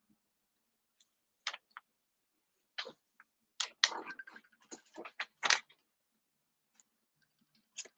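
Irregular clicks and taps of keyboard and mouse use at a computer: a few isolated clicks, then a quick uneven cluster of about a dozen in the middle.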